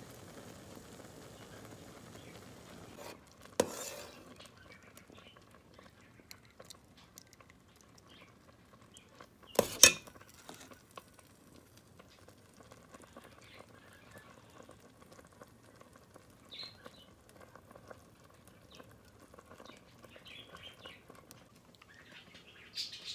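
Metal spoon stirring and scooping hot elderberry syrup in a stainless steel pot, with small scrapes and clinks, a sharp clink about three and a half seconds in and a louder double knock just before ten seconds. A short sip near the end.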